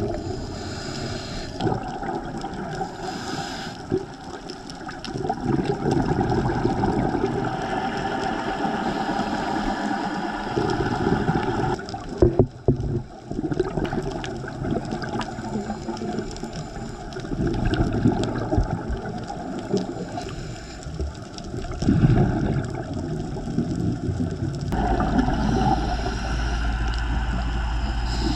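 Underwater gurgling and rushing of scuba divers' exhaled air bubbles, swelling and fading every few seconds, with a brief crackle about halfway through.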